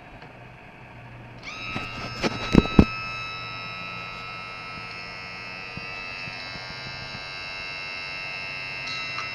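Evinrude/Johnson OMC power trim and tilt unit's two-wire electric motor and hydraulic pump starting up about a second and a half in and running with a steady whine. A few loud knocks come just after it starts. The owner suspects the unit is low on fluid or its motor is on its last legs.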